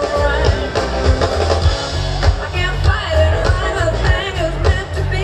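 Live rock band playing over a large outdoor PA, a singer's voice carrying the melody over heavy bass and steady drums.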